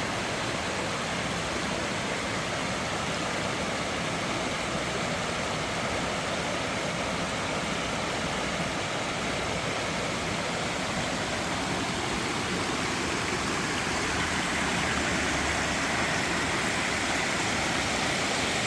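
Waterfall: a steady rush of falling water, growing a little louder in the last few seconds.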